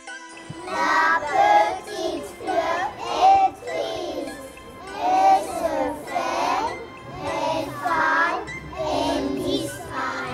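A group of young children chanting a French nursery rhyme in unison, in short phrases, over light tinkling background music.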